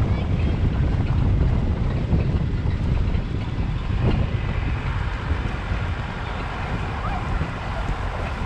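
Wind buffeting the microphone: a steady, uneven low rumble with no distinct pitched sound.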